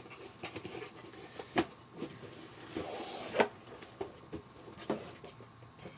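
A boxed toy motorcycle figure being unpacked by hand: scattered clicks and taps and a brief rustle of packaging being handled.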